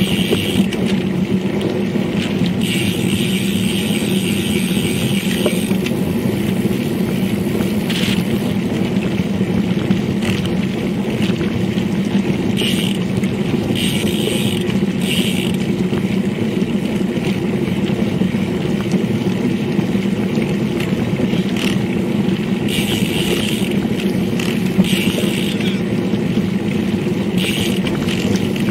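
Steady wind and tyre noise from riding a road bicycle at about 27 km/h, heard through a bike-mounted action camera's microphone, with short bursts of higher hiss every few seconds.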